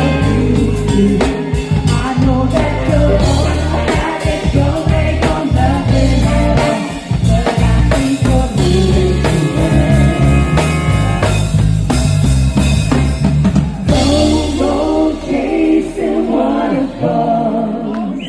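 A live band playing a song with a lead singer, bass and drums; about fourteen seconds in the band drops out and the voice carries on alone with long, bending notes to close the song.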